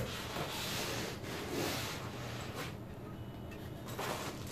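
Rustling and rubbing from hands working in foam packing inside a cardboard box and handling a plastic clip, loudest in the first two seconds, followed by a couple of light knocks.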